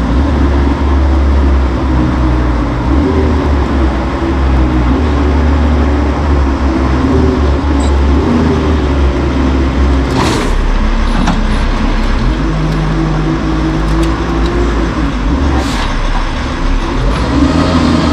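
Heavy diesel truck engine running at a steady low idle, with two short hisses of air about ten and sixteen seconds in.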